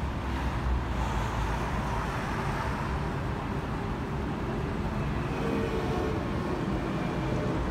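Steady city road traffic: cars and engines passing, with a deep low rumble that is strongest at the start.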